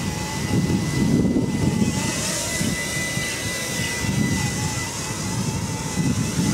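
Small multirotor octocopter's motors and propellers whining in flight, the pitch wavering up and down as it is steered. Heavy gusty wind buffets the microphone.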